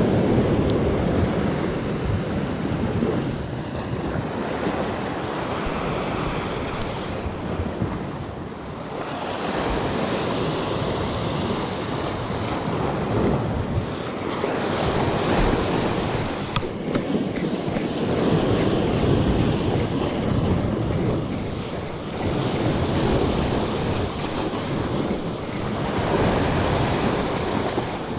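Sea waves surging and washing over the rocks at the waterline, swelling and easing every few seconds, with wind buffeting the microphone.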